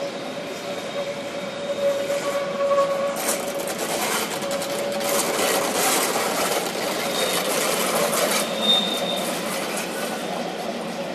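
Berner Oberland Bahn narrow-gauge train passing close by: a steady rolling rumble of coach wheels on the rails with a held squealing tone. From about three seconds in there is a dense run of clicks and clatter over the rail joints for some five seconds, and short high squeals near the end.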